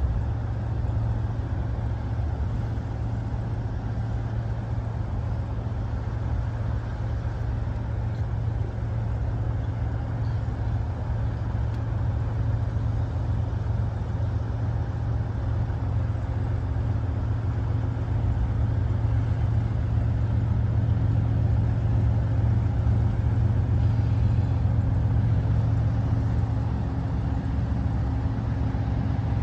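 Low, steady drone of a distant diesel locomotive approaching on the main line, growing a little louder in the second half.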